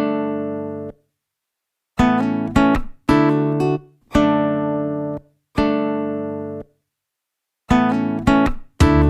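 Background music: guitar chords struck one at a time, each ringing out and fading, with short silent pauses between some of them.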